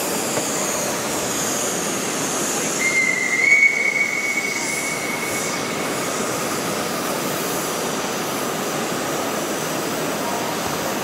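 A large-scale live steam model train making a high, steady squeal for about three seconds, a few seconds in, over a continuous noisy background.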